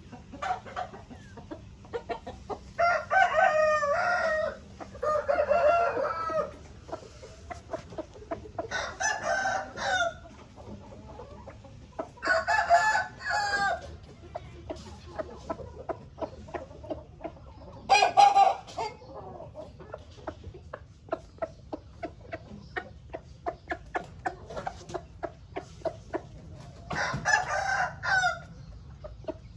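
A rooster crowing several times, each crow lasting one to two seconds, with short clucks in between that come thick and fast in the second half.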